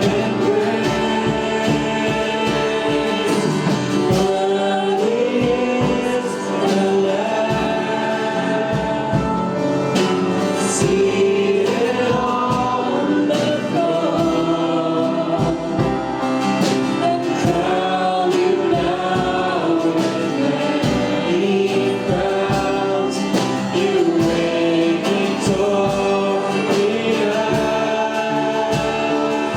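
Gospel worship song sung by a group of voices over instrumental accompaniment with a steady beat.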